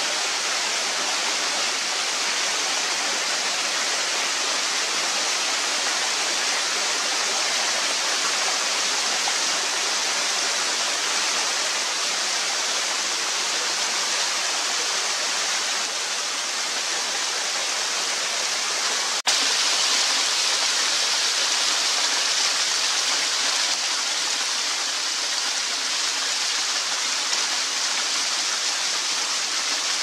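Small waterfall pouring steadily over rock, a continuous rush of falling water. A sharp click comes about two-thirds of the way through, and after it the rush is slightly louder.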